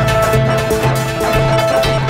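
Music with a steady beat: a bass note repeating about twice a second under percussion and a held higher tone.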